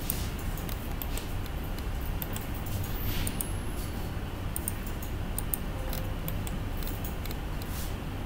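Irregular sharp clicks of a computer mouse, its buttons and scroll wheel worked while zooming around a 3D model, over a steady low hum.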